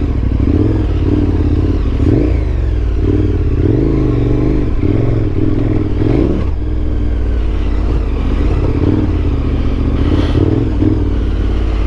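KTM 1290 Super Adventure's V-twin engine pulling at low revs on a slow dirt trail, the revs rising and falling with the throttle, with a few short clattering knocks from the bike.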